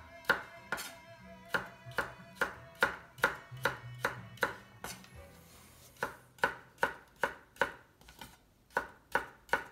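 Kitchen knife dicing kabocha squash on a wooden cutting board. Each stroke knocks sharply through the firm flesh onto the board, about two a second, with a short pause about halfway through.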